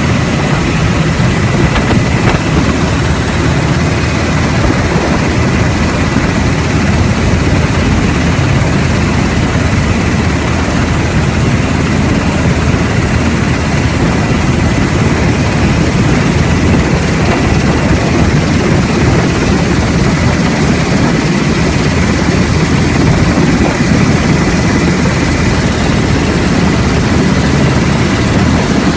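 Black Hawk helicopter running steadily, its rotor and turbine engines making a loud, constant noise with a faint high whine.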